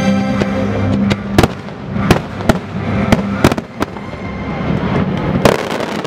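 Aerial fireworks exploding in a string of sharp bangs, about eight in all, with the strongest about a second and a half in and another near the end. A held chord of show music sounds under the first second.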